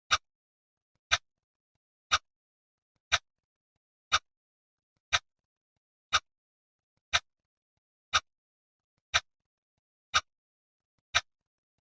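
Clock ticking steadily once a second, twelve identical sharp ticks with nothing heard between them.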